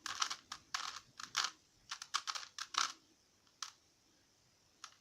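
Plastic Rubik's Cube being scrambled by hand: its layers are turned in quick succession, giving a rapid run of clicks and clacks for about three seconds, then two single clicks.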